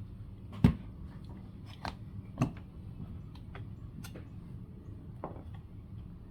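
Scattered clicks and knocks from handling a multimeter and its test leads on a bench. The sharpest comes about two-thirds of a second in and another about two and a half seconds in, over a steady low hum.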